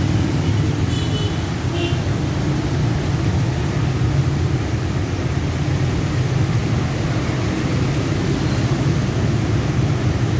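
Steady low background rumble, with a few faint short high chirps between one and two seconds in.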